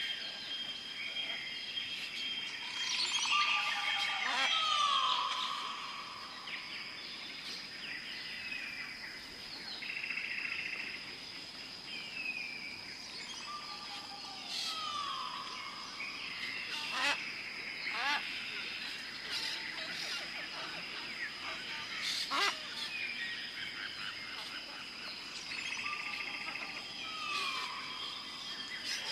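Tropical forest ambience: assorted bird calls, including falling whistled glides, over a steady high-pitched insect drone. The same group of calls comes back about every eleven seconds, and a few sharp clicking calls come in the second half.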